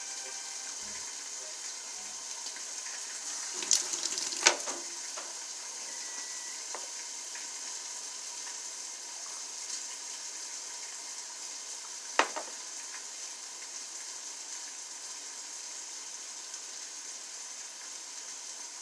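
Steady high sizzling hiss, with a few sharp clicks about four seconds in and again about twelve seconds in.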